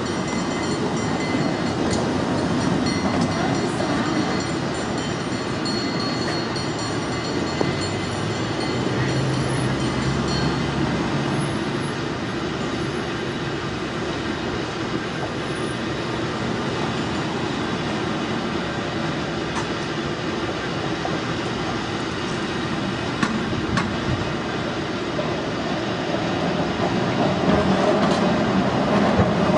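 San Francisco cable car running down its track, with the cable moving in the street slot beneath it: a steady low rumble with a few sharp clicks, growing louder near the end as the car draws close.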